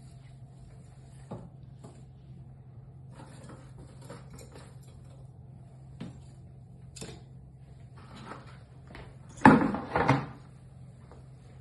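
Sticks of kindling knocking and clattering as they are laid into a fireplace, with a cluster of louder knocks about nine and a half seconds in. A steady low hum runs underneath.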